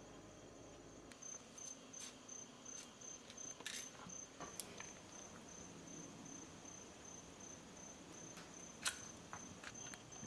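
Quiet food-prep handling: soft clicks, taps and rustles of hands threading raw beef and green onion pieces onto wooden toothpicks on a wooden cutting board, with one sharper click near the end. A faint steady high-pitched whine sits underneath from about a second in.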